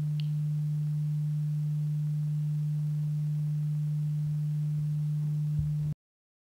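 A steady low pure-tone hum that cuts off abruptly about six seconds in, leaving dead silence.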